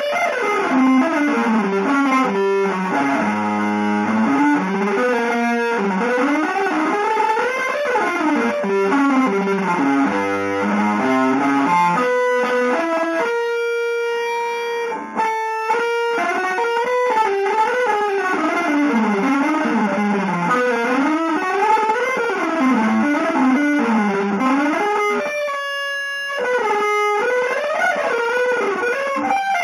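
Solo electric guitar playing fast runs that sweep rapidly up and down in pitch, twice pausing on a long held note, about halfway through and again near the end.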